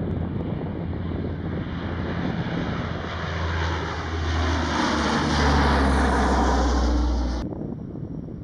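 Lockheed EC-130H Compass Call passing low overhead, the steady drone of its four Allison T56 turboprop engines and propellers growing louder as it nears. Near the end the sound cuts off abruptly to a quieter rumble.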